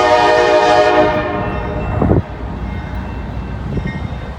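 Diesel freight locomotive's air horn sounding one long, steady chord of several tones that cuts off about two seconds in, over the low rumble of a passing freight train.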